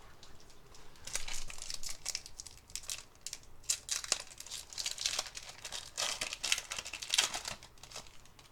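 Foil booster-pack wrapper crinkling and tearing as it is ripped open and handled, a run of irregular crackly rustles.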